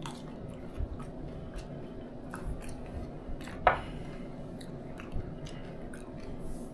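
Eating chia pudding with a spoon: quiet chewing and scattered small clicks of the spoon against the container, the sharpest about three and a half seconds in.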